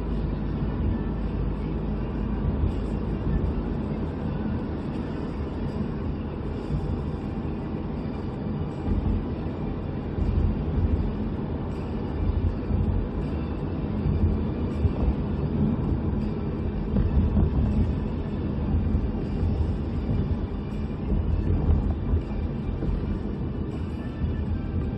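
Steady low road and engine rumble of a moving car, heard from inside the cabin, rising and falling a little in level.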